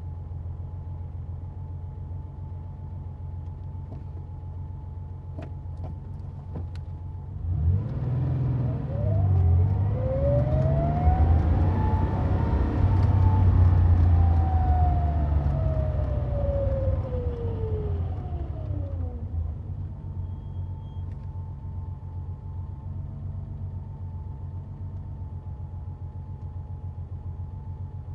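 1990 Porsche 911's air-cooled flat-six idling, then given one long, smooth rev about a third of the way in that climbs in pitch and sinks back to idle.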